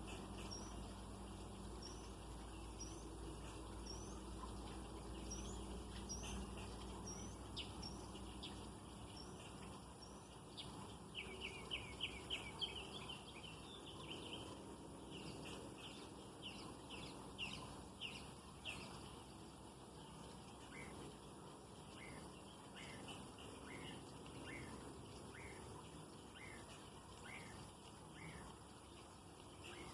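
Small birds chirping: a short rising chirp repeated over and over, then a quick run of chirps about a third of the way in (the loudest part), and more chirps through the rest. A faint low hum sits under the first several seconds.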